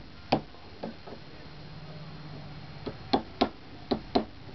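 Light taps of a plastic-faced mallet on a Shure SM58's wire-mesh grille, seated over a screwdriver handle, knocking a dent back out to round. One tap comes early, then a quick run of four or five taps near the end.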